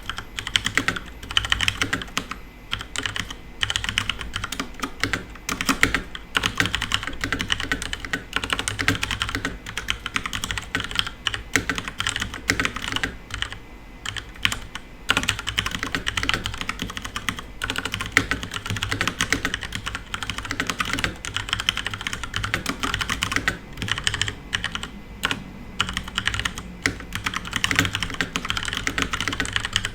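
Continuous fast typing on a FILCO Majestouch Ninja Tenkeyless mechanical keyboard with Cherry MX Brown tactile switches: a dense, irregular run of keystroke clacks with no pause.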